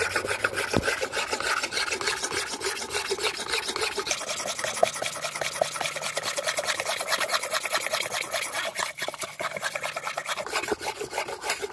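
A scissor blade being ground flat on a wet whetstone in quick, steady back-and-forth scraping strokes. The scissors are badly worn, so the blade needs heavy grinding.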